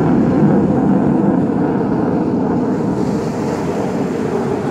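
Jet noise from a military combat jet passing, a steady roar without clear pitch that slowly fades.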